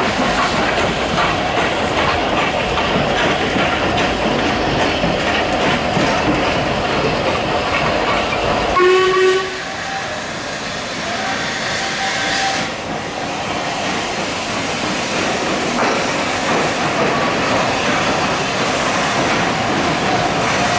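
A train rolling past, its carriages rumbling and clattering over the rails, ending about nine seconds in with a short, loud whistle blast. Then a quieter stretch of a steam locomotive moving slowly through the station, with a faint held whistle tone partway through.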